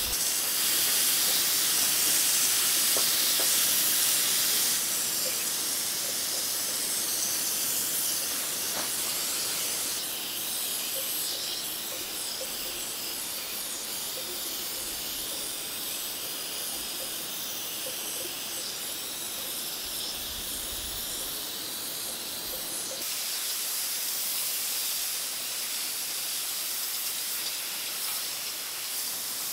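Compressed-air gravity-feed spray gun hissing steadily as it sprays paint, the hiss shifting in strength a few times.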